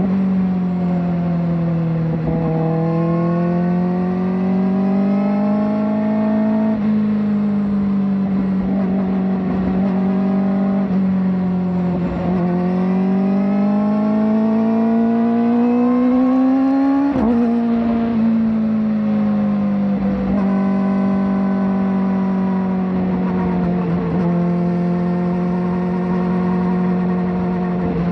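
Kawasaki ZX-4RR's inline-four engine through a slip-on exhaust, accelerating through the gears: the pitch climbs slowly, then drops sharply at each gear change, about five times, and holds steady in between.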